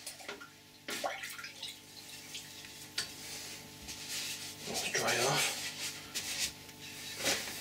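Water splashing and dribbling as a metal axe head is rinsed and handled, with a few sharp knocks.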